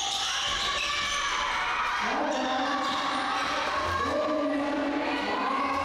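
A basketball bouncing on an indoor court amid crowd voices, some of them held in long notes.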